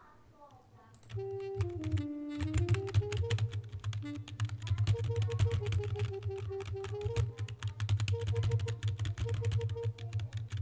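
Sampled mey, a Turkish double-reed, from a Kontakt 'Mey G Slow' patch playing a slow melody of single stepping notes. The notes are triggered from a computer keyboard, whose keys clatter loudly throughout, starting about a second in.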